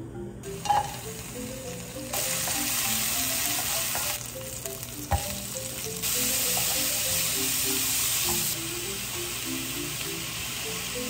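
Sliced onion sizzling in hot olive oil in a frying pan. The sizzle grows louder about two seconds in and again about six seconds in, then eases a little, with one light knock about five seconds in.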